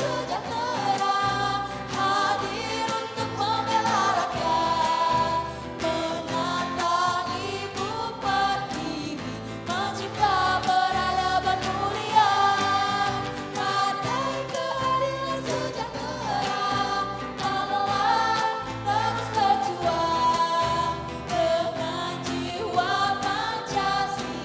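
A song with a singing voice over an instrumental backing with a steady bass line.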